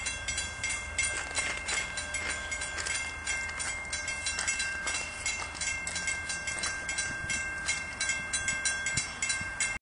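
Railroad grade-crossing bell ringing with rapid, evenly spaced strikes as the crossing clears after a train has passed and the gates rise.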